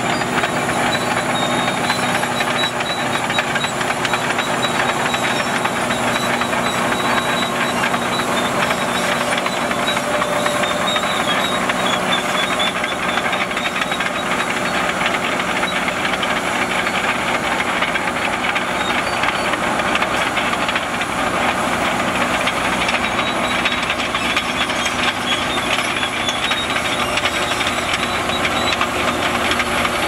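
Shantui SD22 crawler bulldozer's diesel engine running steadily under load as the machine rips through dry dirt, with a constant hissing mechanical noise.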